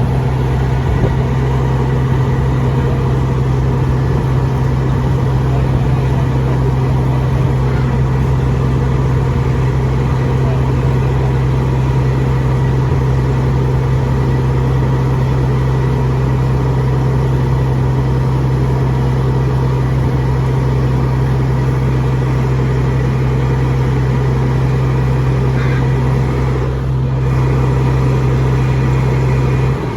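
Fire truck engine idling steadily, a loud constant low drone.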